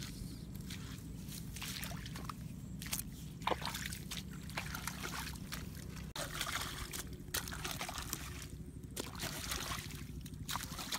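A hoe blade chopping into wet mud and shallow puddle water: repeated sharp strikes with sloshing and splashing water, over a steady low hum.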